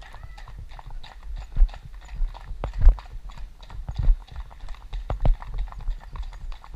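Horses' hooves clip-clopping at a walk on a tarmac road, heard from the saddle; an irregular run of hoofbeats, some much louder than others.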